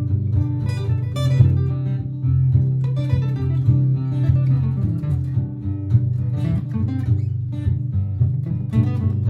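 Martin GPCPA4 acoustic guitar played through a looper. A steady low looped layer runs under plucked single notes and strums played on top.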